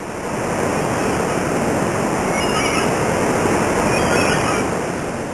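A steady, loud rushing noise, with a few faint high chirps in the middle, that cuts off suddenly at the end.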